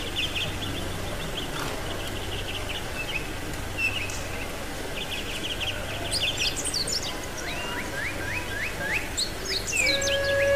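Birdsong sound effect: runs of quick chirps, joined from about six seconds in by higher chirps and rising whistled calls, over a steady low hum. Sustained musical tones come in near the end.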